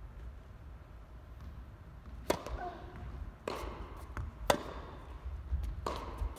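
Tennis ball struck back and forth with rackets in a rally: sharp hits starting about two seconds in, roughly a second apart, the loudest a little past the middle, each with a short echo of the indoor hall.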